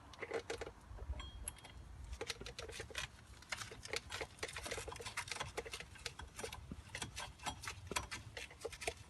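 Faint, irregular small metallic clicks and taps of a 12 mm fine-thread bolt, nut and socket being handled and screwed into place by hand.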